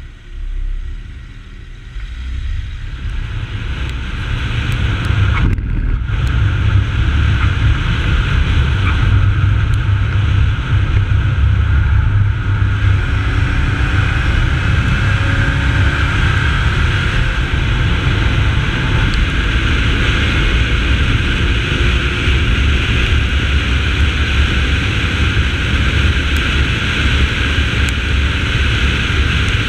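Holden VY Commodore's 3.8-litre V6 running on track, a deep steady drone under a constant rush of wind and tyre noise. It grows louder over the first few seconds as the car pulls away and gets up to speed, then holds steady.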